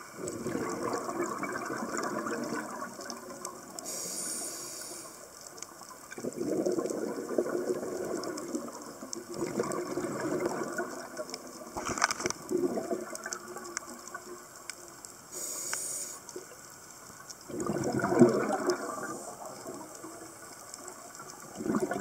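Scuba diver breathing through a regulator underwater: bubbles rush out in a burst every few seconds, with short hissing inhalations between them.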